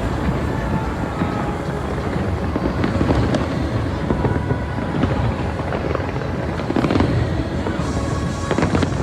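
Fireworks going off in a continuous barrage, a steady rumble of deep booms with sharper bangs scattered through it.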